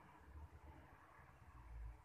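Near silence: faint low rumble and hiss, with one soft low thud near the end.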